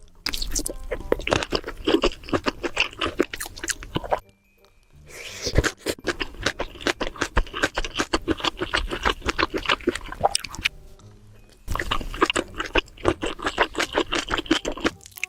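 Close-miked eating of sausages: bites and chewing in a rapid, irregular run of small crackling clicks. There is a brief silence about four seconds in and a quieter stretch about ten seconds in.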